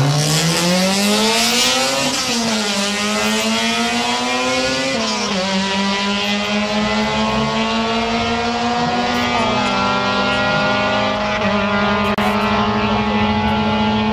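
Car engine accelerating hard on a quarter-mile drag pass, its pitch climbing through the gears with sharp drops at upshifts about 2 and 5 seconds in, then holding a high, nearly steady note.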